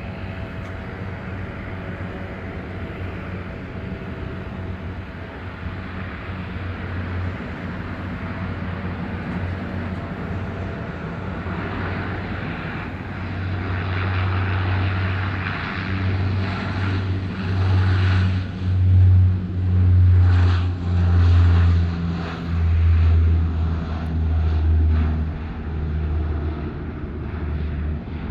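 Embraer EMB-120 Brasilia's twin turboprop engines and propellers at takeoff power, a low propeller drone growing louder. Near its loudest it throbs in slow beats about once a second, then eases off near the end.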